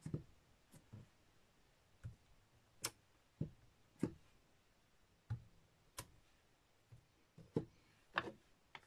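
Clear acrylic stamp block tapped on an ink pad and pressed down onto cardstock on a stamping mat: a series of separate short knocks and clicks, roughly one a second.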